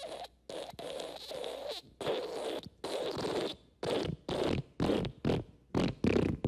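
A string of recorded fart sound effects: raspy, spluttering blasts separated by short gaps, a few longer ones first, then a quicker run of short, louder toots in the second half.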